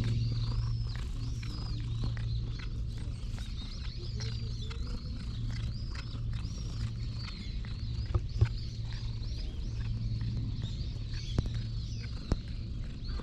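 A stray tabby cat purring close up while it is stroked and scratched, a low steady purr that breaks every second or two as it breathes. Small birds chirp throughout.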